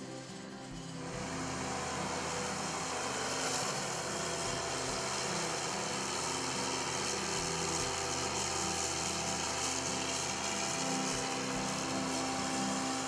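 Diesel engine of a 1998 Case IH 2388 combine running steadily, coming in about a second in.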